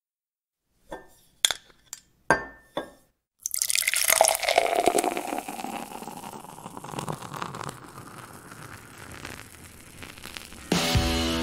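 A few glassy clinks and clicks, then a sudden hiss and beer pouring and fizzing into a glass for several seconds, fading gradually. Music with a steady beat comes in near the end.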